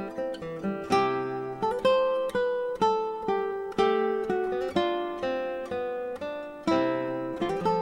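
Background music: an acoustic guitar playing a plucked melody, notes struck a couple of times a second and ringing out.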